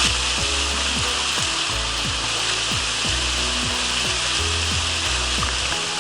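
Background music with a steady drum beat, about two hits a second, and held bass notes, laid over a loud, steady rushing hiss of mountain stream water.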